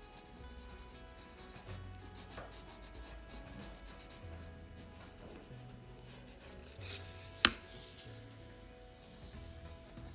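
Colored pencil strokes scratching lightly on paper, over soft background music with slowly changing bass notes. A single sharp click about seven and a half seconds in is the loudest sound.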